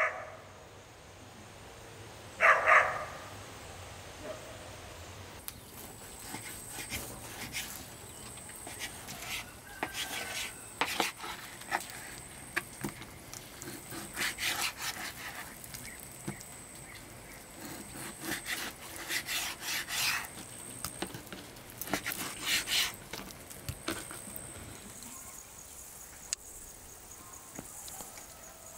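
A dog barks once, loudly, about two and a half seconds in. Afterwards a knife cuts through raw meat, tapping and scraping on a wooden cutting board in short repeated runs of strokes.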